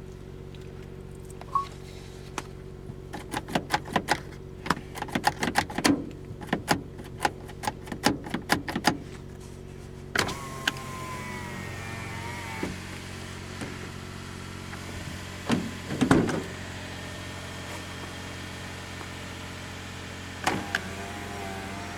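A car's engine running steadily, with a quick run of irregular clicks and knocks, then a wavering whine and a couple of thumps.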